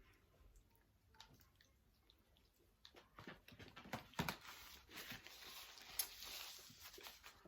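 Faint rustling and crackling with scattered clicks, getting louder about three seconds in: food and its packaging being handled at a meal.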